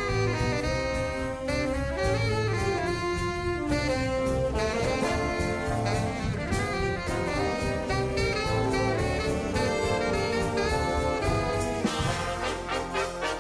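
Upbeat jazz with brass and saxophone over a steady beat.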